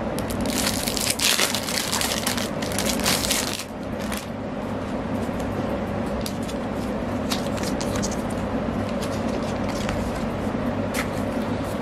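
Plastic cellophane wrap crinkling as it is pulled off a small boxed mirror for about the first three and a half seconds. Then come occasional light clicks and taps as the box is handled, over a steady low hum.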